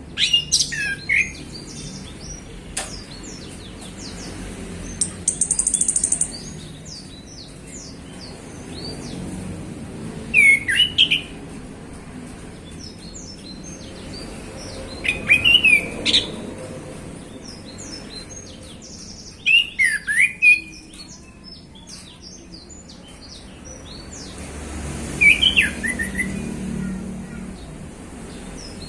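Male chestnut-capped thrush (anis kembang) singing: short bursts of quick, sweeping whistled notes repeated about every five seconds, about six phrases in all, with softer twittering between them.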